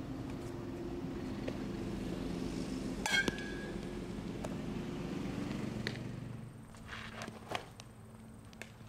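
An aluminium softball bat pings off a ball about three seconds in, a single sharp crack with a brief ring, over a steady low mechanical drone. The drone stops about six seconds in, and a few light knocks follow.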